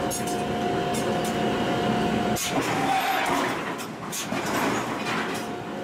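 Forge shop noise: a steady machine hum over a noisy din, the hum cutting out about two and a half seconds in, with scattered metal knocks and clanks.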